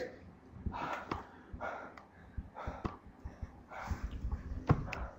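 Quiet breathy puffs from a person close to the microphone, about one a second, with a couple of sharp clicks near the end.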